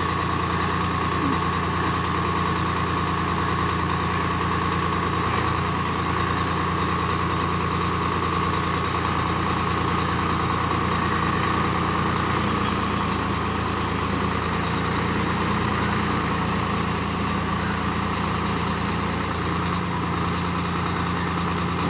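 Tractor diesel engine running steadily while driving a tractor-mounted backhoe loader; its low note shifts slightly about halfway through.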